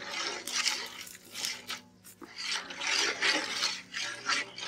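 Metal ladle stirring liquid curry gravy in a steel pot: repeated swishing, scraping strokes, about two or three a second, with a brief pause near the middle.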